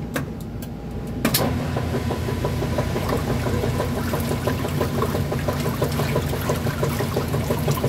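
Top-loading washing machine starting to agitate a full tub of water: a sharp click about a second in, then the motor running and the agitator churning the water with a fast, even rhythm.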